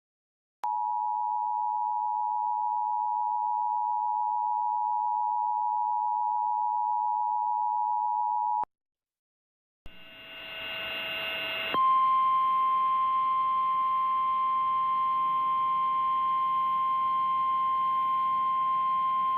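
Emergency Alert System attention signal: a steady two-tone tone held for about eight seconds that stops abruptly. After a short gap, hiss rises in. Then a single steady, slightly higher tone sounds over radio static, the NOAA Weather Radio warning alarm tone.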